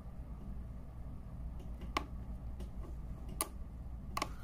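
A few sharp clicks from fingers on the plastic push buttons of a digital lighting timer, the loudest about two seconds in, at three and a half and just before the end, over a low steady hum.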